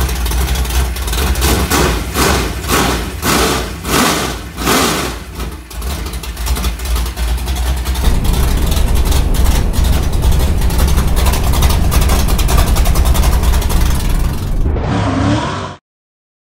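Dirt-track pro stock race car engine running hard on the track, the revs rising and falling for the first several seconds, then held steady. The sound cuts off abruptly about a second before the end.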